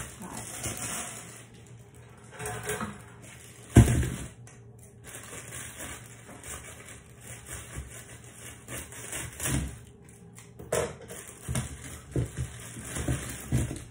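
Kitchen clatter and knocks from vegetables and dishes being handled while washing produce, with one loud thump about four seconds in, over a high hiss that breaks off a few times.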